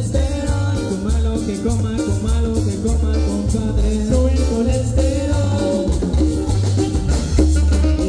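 Live cumbia band playing loudly through a PA: congas, drum kit, a scraped metal güira, keyboard and guitars over a steady heavy bass beat, with a singer on microphone.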